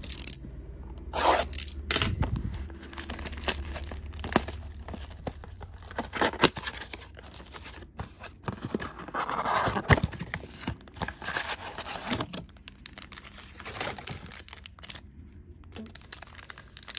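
Trading-card pack wrappers being torn open and crinkled, with cards and packaging handled, giving an irregular run of rips, crinkles and small clicks.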